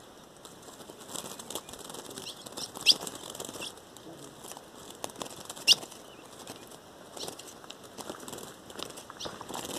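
Ultramarine grosbeaks' wings fluttering at and inside wooden trap cages, with a sharp high chip call about every three seconds.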